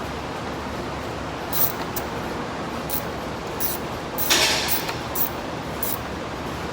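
Hand ratchet tightening valve cover bolts: short metallic clicks at irregular spacing, with a longer, louder rattle a little past the middle, over a steady shop hiss.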